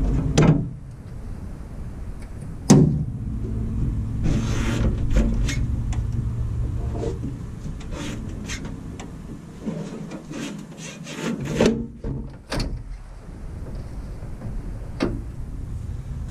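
Jeep Wrangler TJ hood being closed: the hood prop rod is unclipped and stowed with sharp clanks, about half a second in and again near 3 s. Scattered clicks, knocks and rubbing follow as the hood is lowered onto the fenders.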